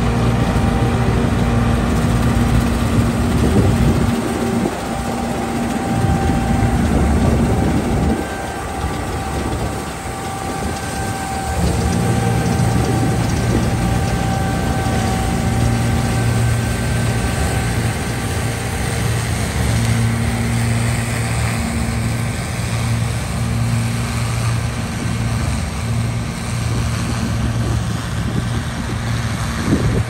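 John Deere 7720 Turbo combine running under load while harvesting: a steady engine hum and rumble with several held whining tones from the threshing machinery. The low rumble drops away twice in the first third, then returns steadily.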